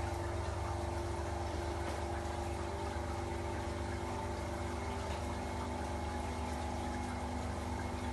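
Seawater flake ice machine running: a steady mechanical hum with several held tones, under a continuous wash of water over the evaporator drum.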